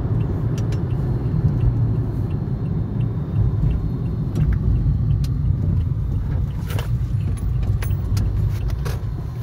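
Car driving, heard from inside the cabin: a steady low road and engine rumble, with a few light clicks and rattles scattered through it, the clearest about seven seconds in.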